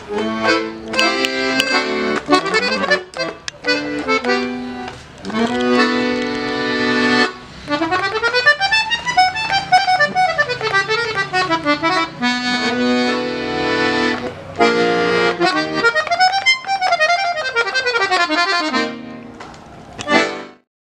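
A 48-bass piano accordion playing a tune: held chords alternate with quick runs of notes that climb and fall, and the playing stops near the end. The instrument has just been tuned and had its broken reeds replaced.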